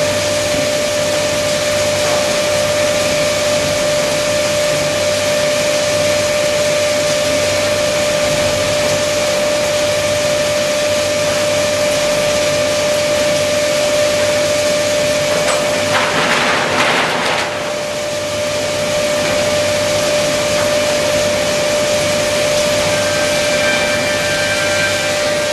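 CSB Woody 1500 wood-waste grinder running, a constant dense noise with a steady whine through it. A louder burst of noise about sixteen seconds in lasts a second and a half, and further steady tones join near the end as wood waste is tipped into the hopper.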